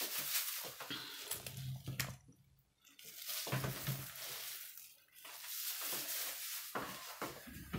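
Plastic bag rustling and crinkling as a marinated slab of pork belly is handled on a wooden cutting board, with a few light knocks.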